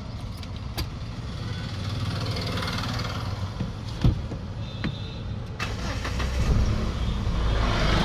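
Mahindra Scorpio engine running after being started on its original key. There is a sharp click about four seconds in, and the engine grows louder over the last two seconds.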